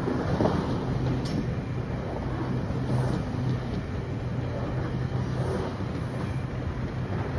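GO Transit bilevel passenger coaches rolling past on the rails: a steady rumble of wheels on track with a low, even hum underneath, and a single brief click about a second in.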